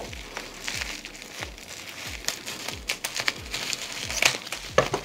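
Scissors cutting open a package, with irregular crinkling and rustling of the wrapping.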